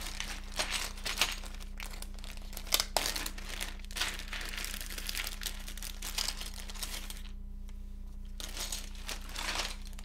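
Clear plastic zip bags of keycaps crinkling and rustling in irregular handfuls as they are rummaged through, with a short lull about seven and a half seconds in.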